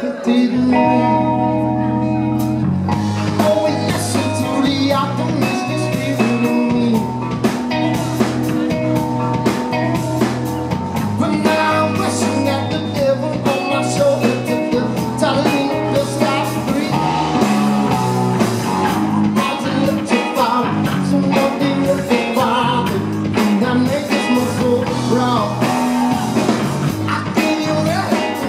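Live rock band playing: electric guitar, electric bass and drum kit with a steady beat, and a man singing lead.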